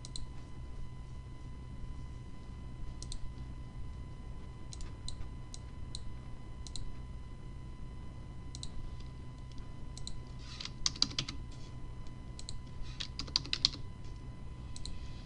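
Computer mouse clicks and keyboard key presses: scattered single clicks a second or so apart, then two quick runs of key taps near the end, over a faint steady hum.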